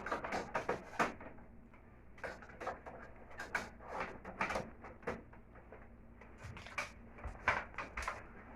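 Irregular plastic clicks and knocks, several a second in spells: the front cover of a split-type air conditioner's indoor unit being handled and fitted back into place.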